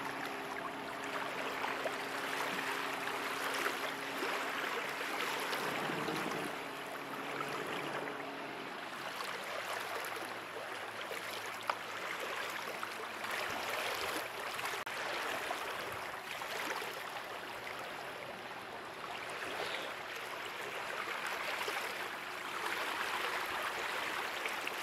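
Steady rush of creek water. For the first several seconds a faint low hum of an outboard motor sits under it, then fades.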